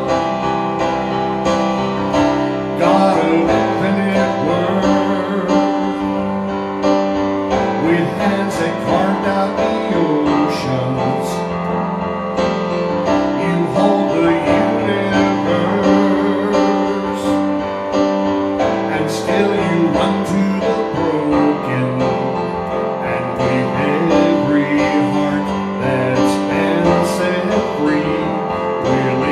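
A man singing a worship song while accompanying himself on a digital piano.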